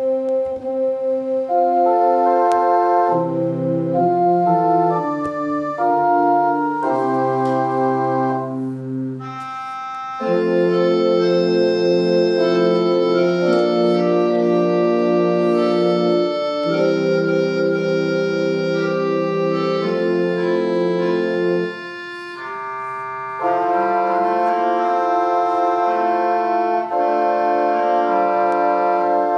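Church organ playing sustained chords: a lighter passage of shifting notes, then fuller, louder held chords from about ten seconds in, with a short break about three quarters of the way through before the full chords return.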